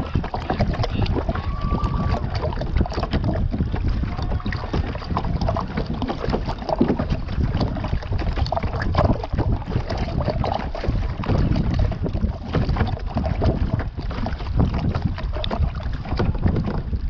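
Water splashing from paddle strokes and slapping against the hull of a plastic sit-on-top kayak, with wind rumbling on the microphone.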